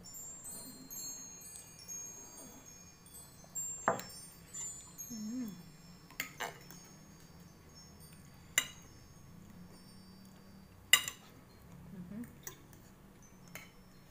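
Fork and knife clinking sharply against a plate a few times, the loudest clink about eleven seconds in, while wind chimes tinkle with high ringing notes, most densely in the first few seconds.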